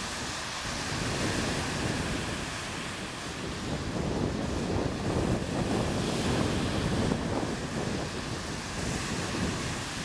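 Surf breaking and washing up a sandy beach, with wind buffeting the microphone as a low rumble that swells and eases.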